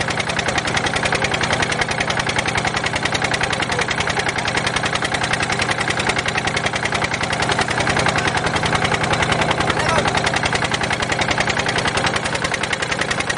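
Engine running steadily with a fast, even chugging beat.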